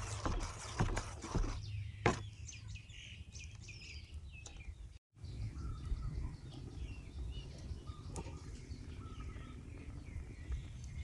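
A spoon stirs and scrapes thick batter in a metal bowl, with sharp clicks in the first two seconds. Small birds chirp throughout over a steady low background rumble.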